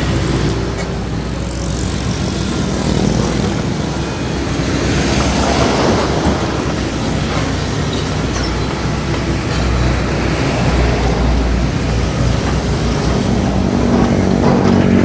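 Doosan DX225LCA crawler excavator's diesel engine running steadily under working load. Its note rises near the end as the hydraulics are worked harder.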